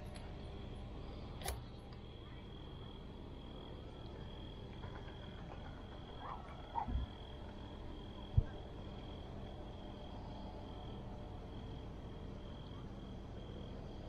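A faint, steady high-pitched trill from a calling animal, pulsing slightly and running on without a break, over a low rumble. A single sharp knock comes about eight seconds in.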